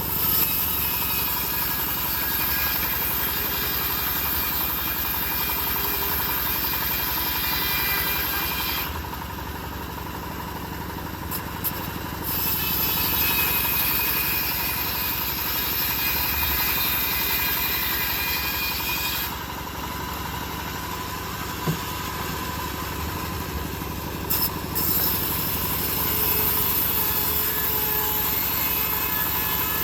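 Home-built bandsaw mill running steadily while its blade saws old teak timber. The high cutting hiss drops away twice for a few seconds, then returns.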